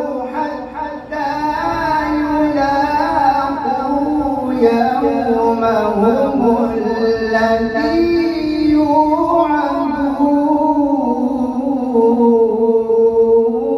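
A man's voice reciting the Quran in melodic tartil style, chanting long drawn-out notes that slide up and down with only brief breaks for breath.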